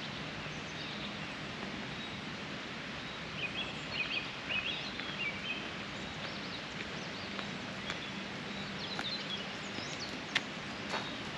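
Outdoor countryside ambience: a steady background hiss with songbirds chirping in short bursts for a few seconds in the middle, and a few sharp clicks near the end.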